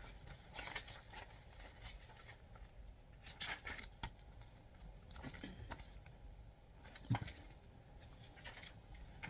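Paper booklet being handled and its pages turned: quiet, scattered rustles and light taps, with a sharper click about seven seconds in.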